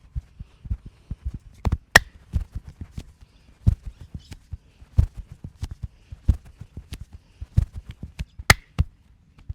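Hands massaging a man's ears and head: an uneven run of soft thumps and sharp taps, a few a second, from patting, tapping and rubbing, with two louder, sharper smacks about two seconds in and again near the end.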